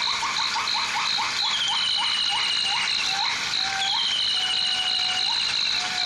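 Tropical forest ambience: a high insect tone pulsing rapidly and steadily, falling whistled calls about every two seconds, and a run of short rising chirps that slow down and give way to long, lower held notes about two thirds of the way through, all over a steady hiss.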